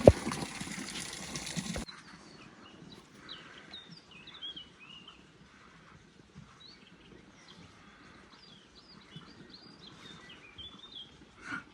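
Small birds chirping and twittering, many short high calls. Before them, for the first two seconds, a louder rushing noise with one sharp click just after the start, which cuts off abruptly.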